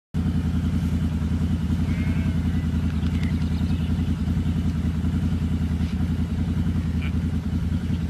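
An engine running steadily at an even speed, a low pulsing hum with no revving. A few faint high chirps come through about two and three seconds in.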